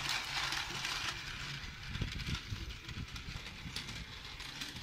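Tomy Plarail battery-powered toy train running on plastic track, a motor whir with clicking wheel clatter. It is loudest as the train passes close at the start and slowly fades.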